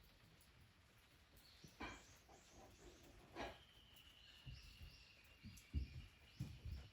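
Faint wild bird calls: a quick run of short high notes, each sliding downward, with a thin steady whistle joining about halfway. A few soft low thuds near the end.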